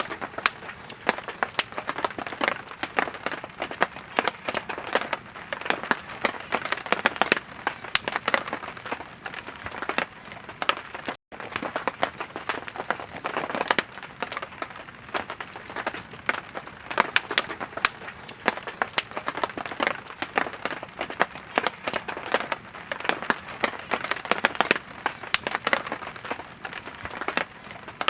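Burning firewood crackling and popping in a campfire: a dense, irregular stream of sharp snaps over a soft hiss, with a split-second break about eleven seconds in.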